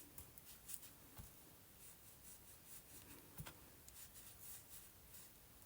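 Faint scratchy rubbing and light taps of distress ink being worked through a thin metal stencil onto a book page.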